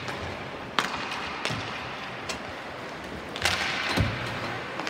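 Hockey sticks clacking sharply on the puck and ice, three separate hits in the first two and a half seconds. A short scraping burst comes about three and a half seconds in, then a dull thud.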